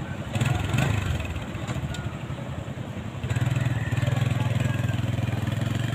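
Small step-through motorcycle engine running as the bike moves off, louder briefly just under a second in and then picking up again about three seconds in and holding steady.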